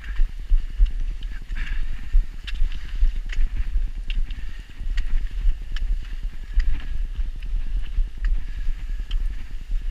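Footsteps crunching on packed snow in a steady rhythm, with thumps of the body-worn camera's movement.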